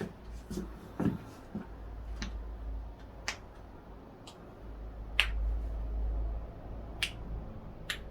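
A series of sharp joint cracks during a chiropractic adjustment, about eight pops roughly a second apart, over a low rumble of body handling.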